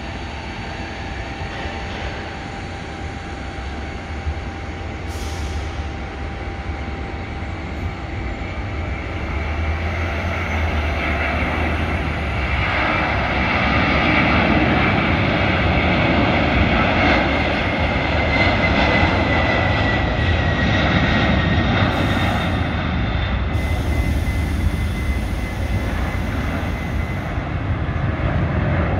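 McDonnell Douglas MD-11F trijet freighter's engines at takeoff power through the takeoff roll and climb-out: a jet rumble that builds steadily over the first half and stays loud, with a whine falling in pitch as the aircraft passes.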